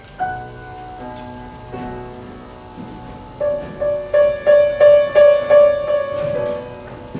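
Piano playing: a few sustained, ringing notes, then from about halfway in one note struck over and over, about three times a second, loudest in the middle.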